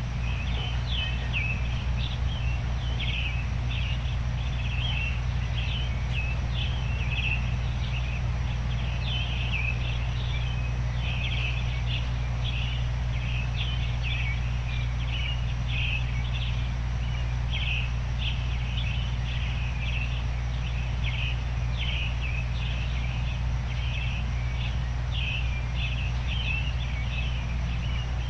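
Dawn chorus of small birds chirping continuously, many short high calls overlapping, over a steady bed of noise with a low rumble underneath.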